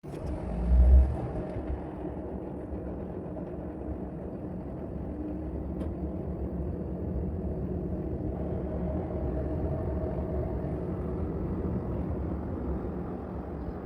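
Front-loading washing machine running its tub-clean cycle: a steady low rumble and hum of the turning drum, with a brief low thump about a second in.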